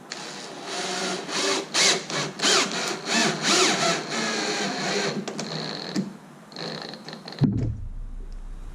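A wood screw being driven into the door edge to mount a lock latch plate, in uneven bursts with squeaking as the screw bites into the wood. A single low thump comes near the end.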